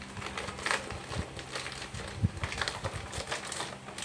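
Rustling and scraping of a foil-lined insulated delivery bag as it is handled and fitted together, with scattered small clicks and a single knock about two seconds in.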